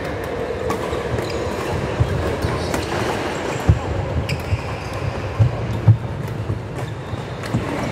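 Badminton rally in an echoing indoor hall: sharp clicks of rackets striking the shuttlecock every second or so, with heavy thumps from players' feet on the wooden court, two of them loudest about four and six seconds in, over a steady hall din.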